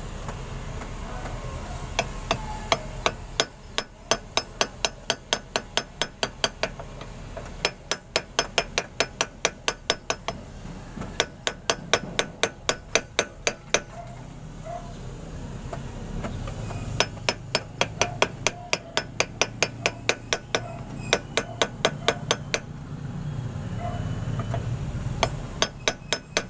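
Hammer striking a steel drift rod to tap a new ball bearing into the front wheel hub of a Bajaj RE three-wheeler. The taps are light, sharp and metallic, about four a second, in several runs of a few seconds each with short pauses between them.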